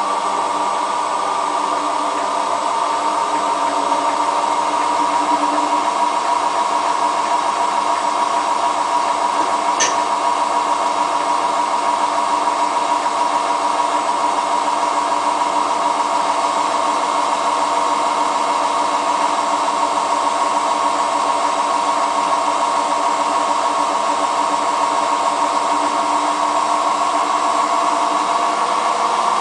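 Hotpoint Ultima WT960 washing machine spinning with a loud, steady roar and whine, its pitch sagging a little and climbing again near the end, with a single click about ten seconds in. The noise on spin is what the owner takes for worn drum bearings.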